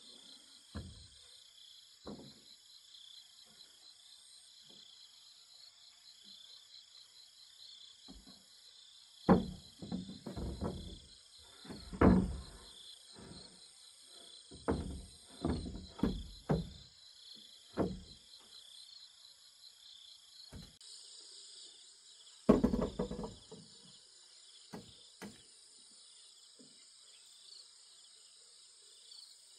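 Irregular wooden knocks and thuds from boards and log beams being handled and struck during roof work, loudest about a third of the way in and again near two-thirds. Insects trill steadily throughout.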